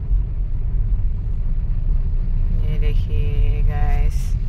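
Steady low rumble of a car, heard inside its cabin while it sits in slow traffic. About two and a half seconds in, a brief pitched sound lasting about a second and a half rises above it.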